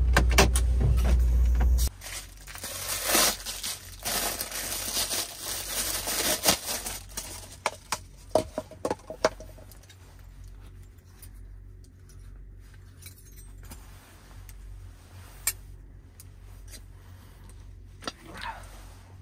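MAN TGX 18.510 truck's six-cylinder diesel running, then switched off about two seconds in, the rumble stopping abruptly. A run of clicks and light jingling rattles follows for several seconds, then dies down to a faint background hum.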